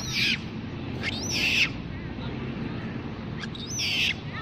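Infant macaque crying: three high-pitched calls, each rising then falling, spaced about a second and then two and a half seconds apart.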